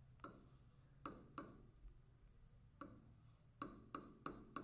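Stylus tip tapping on a tablet screen while handwriting: about ten light, irregular ticks, several of them close together near the end.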